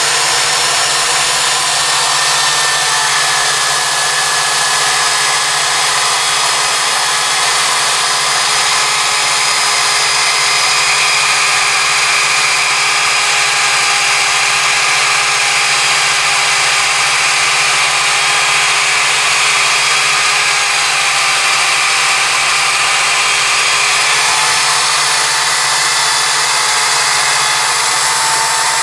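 Electric drill running steadily, spinning a sanding disc pressed against a steel lathe live center to sand off rust spots. A constant motor whine under the hiss of the abrasive on the metal.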